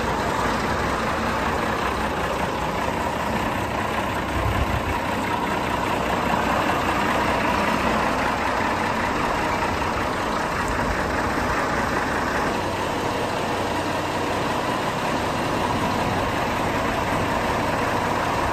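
Ford 7810 tractor's diesel engine running steadily as the tractor moves slowly forward, with a steady whine over a low rumble.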